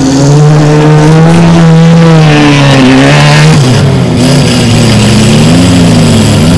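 Banger-racing car engines revving on a dirt track, the pitch rising and falling as the drivers work the throttle.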